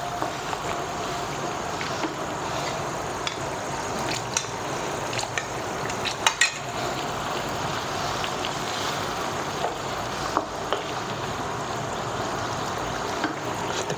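Chicken-and-vegetable sauce simmering in a wok as a wooden spatula stirs it, with a steady bubbling hiss and scattered clicks of the spatula against the pan, the loudest a pair about six seconds in. The sauce is being thickened with cornflour slurry stirred in a little at a time.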